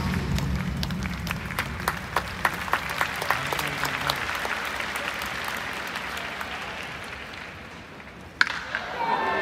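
Baseball crowd clapping in scattered claps, with the tail of a walk-up song fading out in the first few seconds; the clapping thins out and grows quieter. Near the end a single sharp crack of the bat on the ball rings through the dome, and the crowd noise rises again.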